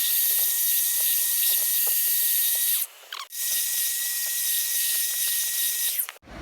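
Belt sander grinding the rusted face of an exhaust manifold flat: a hissing grind over a steady high whine. It breaks off briefly about three seconds in, then resumes and stops near the end.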